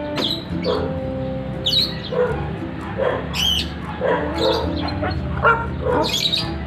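A dog barking and yipping in short calls, repeated every half second to a second.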